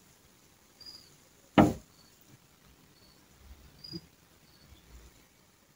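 A single sharp knock about one and a half seconds in and a softer tap near four seconds, over quiet room sound with faint short high chirps recurring every second or so.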